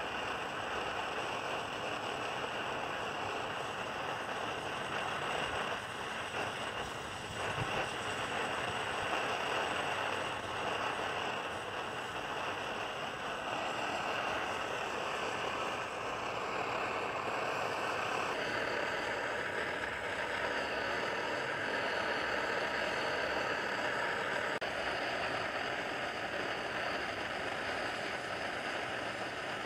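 Svea 123 white-gas camp stove burner running under a pot of water with a steady hiss. The hiss changes slightly in tone about two-thirds of the way through.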